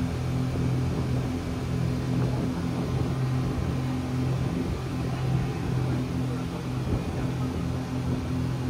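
Speedboat's engines running, a steady low drone.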